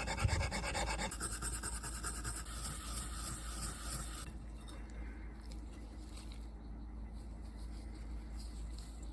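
Hand polishing of a rusty steel axe head: quick, light scratchy rubbing strokes that fade out about four seconds in, leaving a faint steady low hum.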